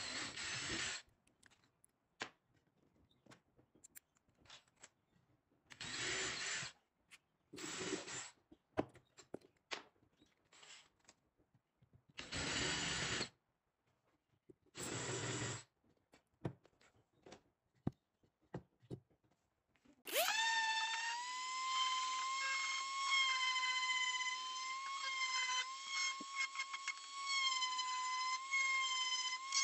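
Cordless drill boring holes into a laminated plywood strip in five short bursts of about a second each, with light clicks and knocks between. About twenty seconds in, a steady high-pitched motor whine starts and keeps running.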